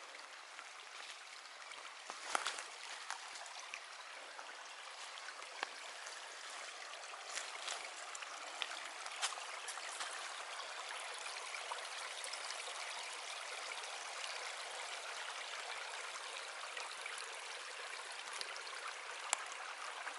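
Small mountain stream of runoff water running over rocks, a steady rushing that grows a little louder over the first half, with a few sharp clicks now and then.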